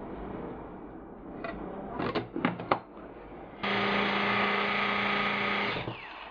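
A few clicks, then an electric mini chopper runs steadily for about two seconds, chopping hard-boiled egg yolks with tuna and mayonnaise into a filling, and winds down with a falling whine as it is switched off.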